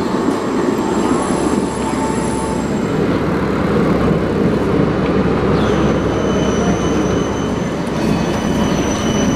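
Electric city trams rolling past on street-running track with a steady rumble. From about six seconds in, a thin high steady squeal of steel wheels on the rails joins it.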